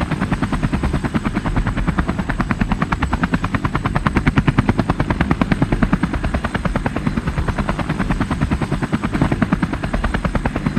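A plastic push-along toy helicopter is rolled across a concrete floor, and its geared rotor spins, giving a rapid, steady clatter of evenly spaced clicks.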